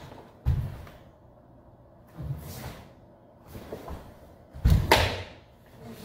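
Bare feet thudding and stamping on a wooden floor as a karateka steps and kicks through a kata, with the swish of the cotton gi. There are four thuds, and the loudest one, with a sharp swish, comes near the end just after a front kick.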